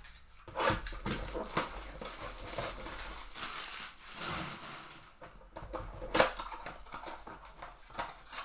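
Crinkling, tearing and scraping as a trading card mega box's wrapping and cardboard are torn open. There is a single sharp snap about six seconds in.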